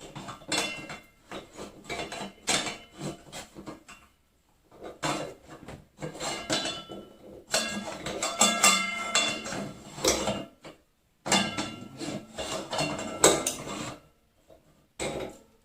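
Metal tools and metal parts clinking, tapping and knocking against each other in quick, irregular runs, with short pauses between clusters, as an appliance is worked on by hand.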